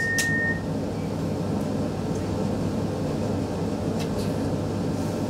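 Steady hum inside a Stockholm Metro C20 carriage standing at a platform: the onboard equipment drones at a constant pitch. A steady high tone cuts off shortly after the start, and there is a faint click about four seconds in.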